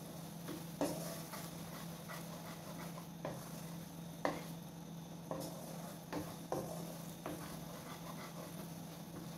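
A slotted spatula stirring and scraping minced garlic in a bubbling butter-honey sauce in a non-stick wok, with a soft sizzle and a few sharp knocks of the spatula against the pan. A steady low hum runs underneath.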